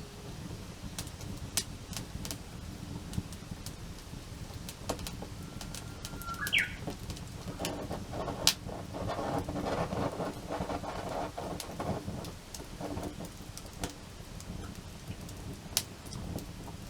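Wood fire crackling, with irregular sharp pops over a low, steady rumble. About six seconds in there is a short whistle that rises in pitch, and the fire swells louder for a few seconds after it.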